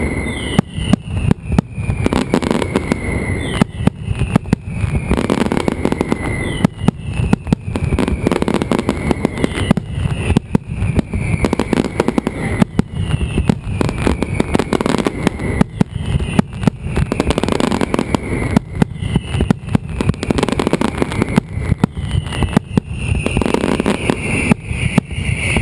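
Mascletà: a dense, continuous barrage of firecrackers going off in rapid, uneven succession, with a falling whistle repeating every second or two.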